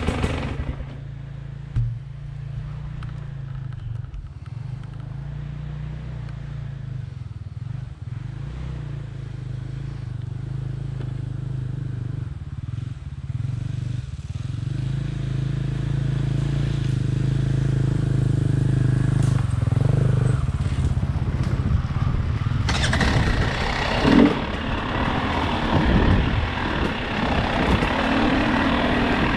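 Motorcycle engine idling with a steady low note, then running louder and rougher from about three-quarters of the way through as it is revved and ridden.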